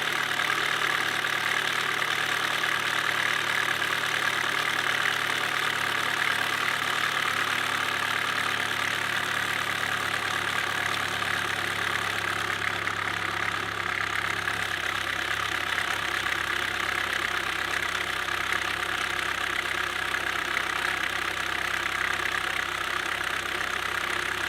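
2007 Chevy Cobalt SS Supercharged's 2.0 L four-cylinder engine idling steadily with a loud knocking noise that a brand new timing chain tensioner has not cured.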